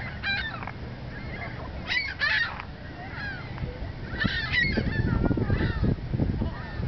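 Flock of birds calling repeatedly, with several calls overlapping in bursts about two seconds apart. From about halfway, wind buffets the microphone with a low rumble.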